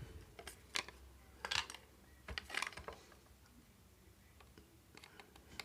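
Small metal screwdriver bits clicking and rattling as they are picked through and handled, in irregular clusters of light clicks, busiest in the first three seconds and sparse after that.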